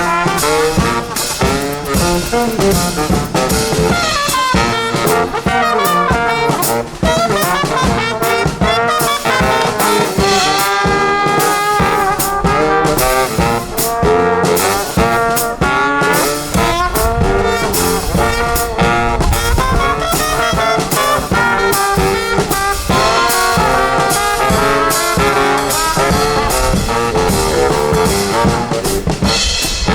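A brass band playing a lively tune, with trombones and trumpets over a driving drum beat.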